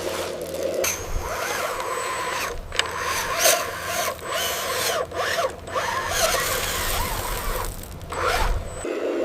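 Small electric motors and gearboxes of a 1/16 scale RC skid steer whirring, the whine wavering up and down in pitch as it works. The sound drops out abruptly several times for a moment.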